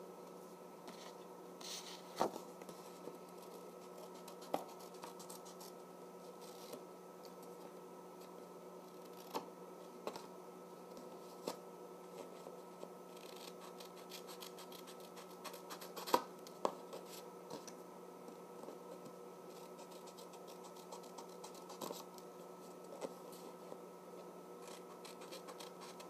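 Scissors cutting a square of paper-plate card, rounding off its corners: faint, scattered snips and paper rustles, over a steady low hum.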